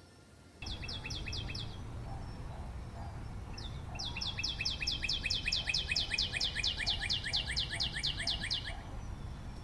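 A small bird repeating rapid, sharp, falling chirps at about five a second: a short burst, then a longer run of about five seconds, over a low background rumble.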